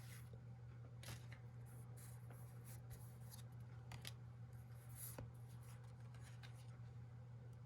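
Faint rustles and soft clicks of trading cards being handled and slid apart, a few at a time, over a steady low hum.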